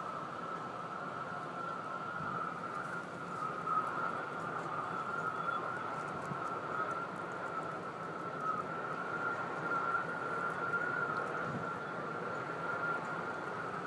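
An unexplained steady, high-pitched drone that wavers slightly in pitch, heard over a background hiss.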